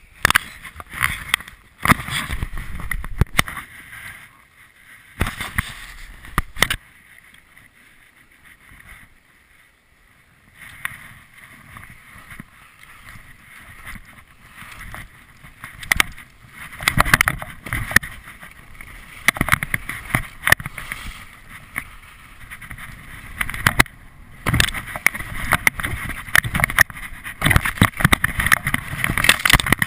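Skis sliding and scraping over packed, chopped-up snow, with wind on the action camera's microphone. The noise comes in uneven surges, quieter for a few seconds near the middle and louder in the last third, with occasional sharp knocks.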